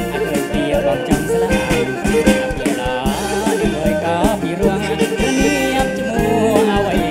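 Live kantrum band playing an upbeat number with a steady drum beat, with a voice singing over the band.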